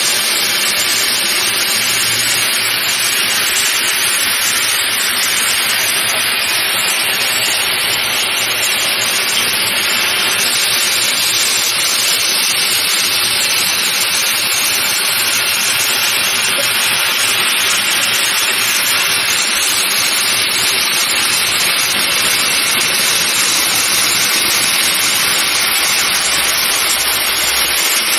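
Steady hissing sizzle of red-hot metal balls melting down into a block of ice, the meltwater touching the hot metal flashing to steam.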